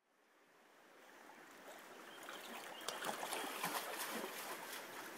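Small stream trickling and babbling over stones: a steady wash of water with lots of little irregular splashes, fading in over the first couple of seconds.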